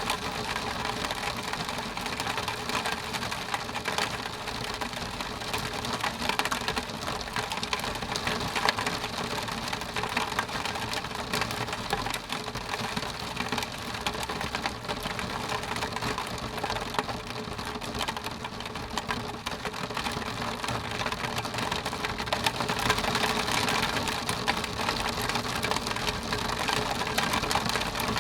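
Rain falling on a window pane: a dense, steady patter of drops on the glass.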